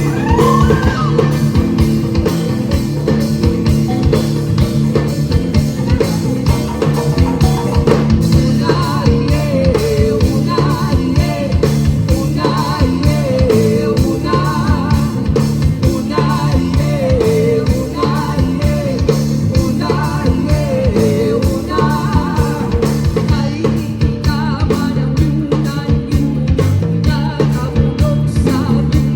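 Rock-style music with electric guitar, drums and a singing voice, playing steadily.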